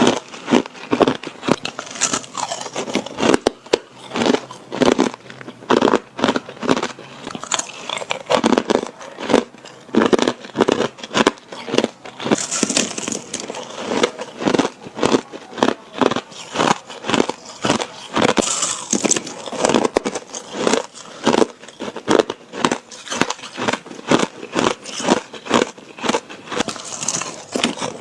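Ice being bitten and crunched between teeth, a steady run of sharp crackling crunches a few times a second.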